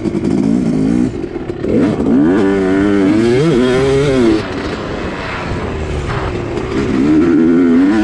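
Yamaha YZ250 two-stroke dirt bike engine under hard throttle on a motocross track. The revs climb and fall repeatedly, dropping sharply about four seconds in and building again near the end.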